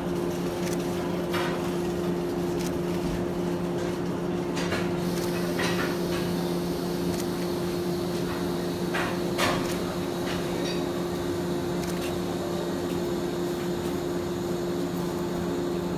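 Steady electrical hum from a stationary Shinano Railway 115 series electric train, with a few short clicks and knocks about one, five and nine seconds in.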